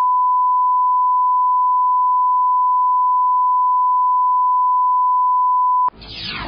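Steady 1 kHz reference tone played with SMPTE colour bars: a single pure, unbroken beep that cuts off abruptly about six seconds in. The film's soundtrack begins just after it.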